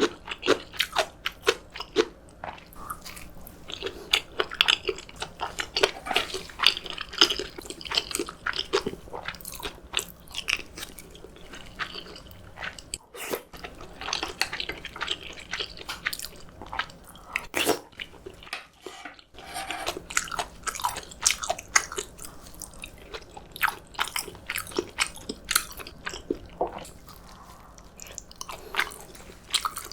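A person chewing and biting food close to the microphone, with frequent crisp crunches and clicks and a couple of brief pauses.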